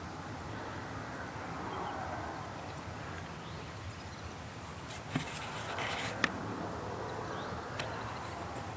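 Steady outdoor hiss with a few short rustles, and sharp clicks about five and six seconds in and a fainter one near the end.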